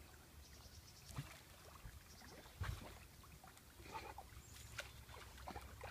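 Faint water lapping and paddling as a dog swims across a pool, over a low wind rumble on the microphone, with one soft knock about two and a half seconds in.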